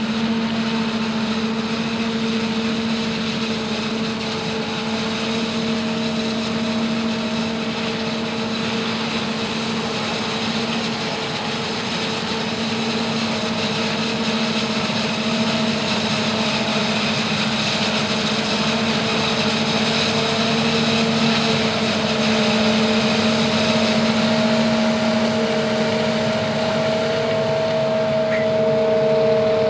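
New Holland FR9060 forage harvester chopping maize, with a Volvo tipper truck driving alongside under the spout: a steady, even machine drone with a constant hum, growing a little louder toward the end.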